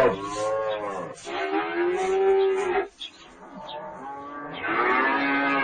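Cow mooing in drawn-out calls: one tails off in the first second, a longer moo runs from about one to three seconds in, and another begins near the end.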